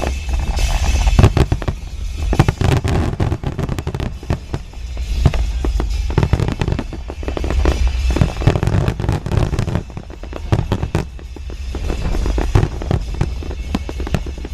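Aerial fireworks exploding in a rapid, irregular string of sharp bangs and crackles, over a steady low rumble.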